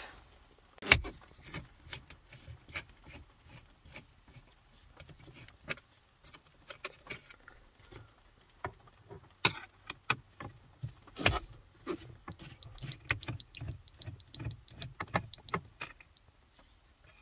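Scattered small clicks, taps and rattles of a screwdriver and hands working at the plastic centre-console trim of a car while Phillips screws are taken out, with a few louder knocks about a second in and twice more in the middle.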